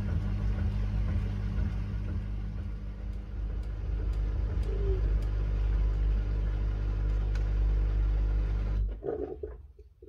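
Miele W1 washing machine running: a steady low motor hum and drum rumble that grows louder about halfway through, then cuts off suddenly near the end, followed by a few faint knocks.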